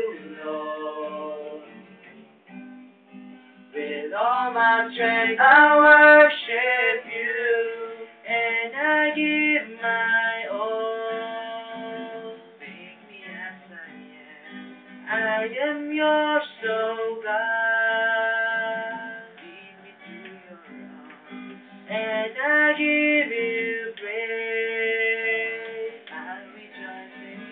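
Acoustic guitar strumming while voices sing a song in phrases with short pauses between lines.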